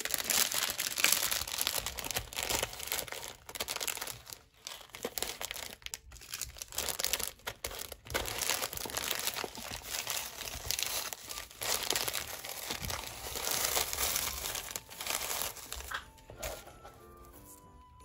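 Clear plastic bags and shredded paper filler crinkling and rustling as a gift box is packed by hand. The crinkling stops about two seconds before the end, leaving soft background music.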